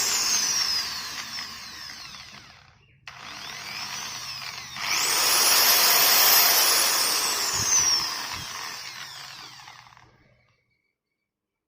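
iBELL ED10-30 electric drill winding down, then squeezed again about 5 seconds in: its motor whine rises sharply to full speed and holds briefly. The trigger is released, and the whine falls until the drill stops about ten seconds in.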